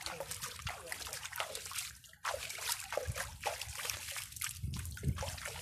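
Hands splashing and scooping water in a shallow spring-fed stream, with the water trickling along the channel; quick repeated splashes, with a short gap about two seconds in.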